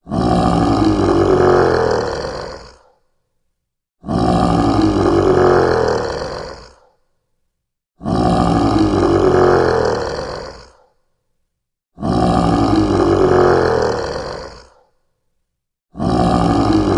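A lion's roar, the same recording repeated five times, one every four seconds. Each roar lasts about three seconds and falls in pitch, with dead silence between them.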